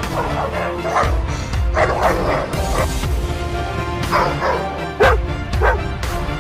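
A dog barking several times in short, sharp barks, the loudest a little past the middle, over steady background music.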